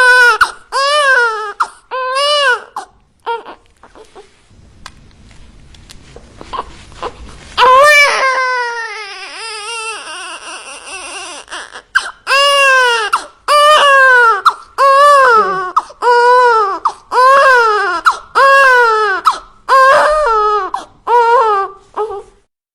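Baby crying: short wailing cries about one a second, then a quieter pause of a few seconds, one long drawn-out cry, and a steady run of rhythmic cries that stops just before the end.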